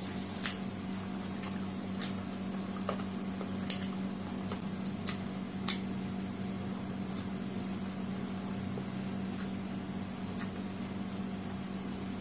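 Eating by hand at close range: chewing noodles and fried chicken, with short soft clicks and smacks every second or two over a steady background hum.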